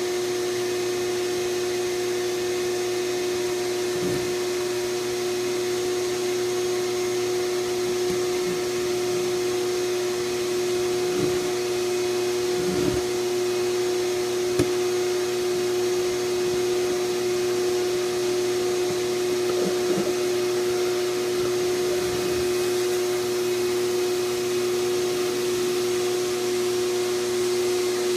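Portable Duct Wizard duct-cleaning machine running, a steady motor hum with a strong held tone, while its rotating brush works inside a floor duct. Several short knocks come through as the brush and hose strike the duct.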